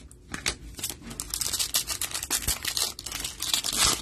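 Foil wrapper of a 2022 Donruss Optic football card pack crinkling and tearing as it is ripped open by hand, a dense run of crackles starting about a third of a second in.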